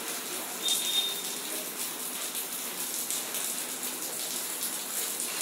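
Steady background hiss with a few faint clicks and a brief high whistle about a second in.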